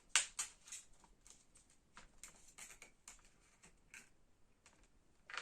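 Irregular light clicks and taps of a plastic glue bottle being handled, the loudest cluster in the first second.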